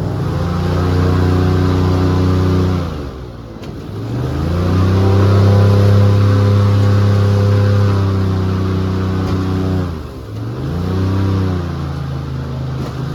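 A motor vehicle's engine running under way. Twice, about three seconds in and again near ten seconds, its pitch and loudness sag and then climb back as it revs up again.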